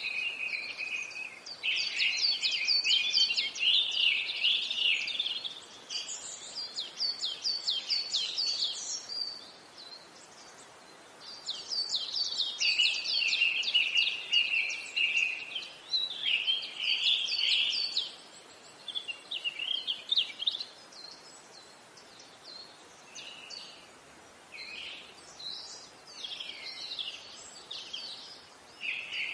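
Small songbirds singing: phrases of rapid high chirps and trills lasting several seconds with short pauses between them, fainter in the second half.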